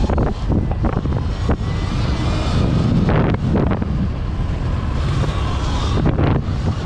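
Sur-Ron electric dirt bike riding off-road, heard mostly as heavy wind buffeting on the action camera's microphone, with repeated knocks and clatter from the bike over rough ground.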